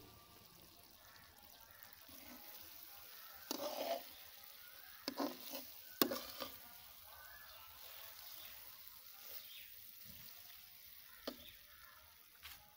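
Okra, onion and tomato frying in a metal karahi over a chulha, sizzling faintly, while a metal spatula scrapes and clinks against the pan several times, the sharpest clink about six seconds in.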